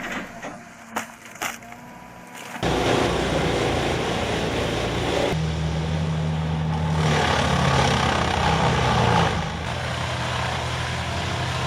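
Heavy wood-processing machine running under load, splintering and crushing wood. A few sharp knocks come first; the machine comes in loud about two and a half seconds in, with a steady engine drone under the splintering, and eases off a little near the end.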